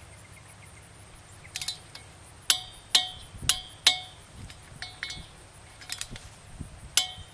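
Click-type torque wrench clicking on a pipe cap's set screws, a series of sharp metallic clicks starting about a second and a half in, roughly two a second. The clicks mark the preset torque of about 27 newton metres being reached as the screws are snugged until they no longer turn.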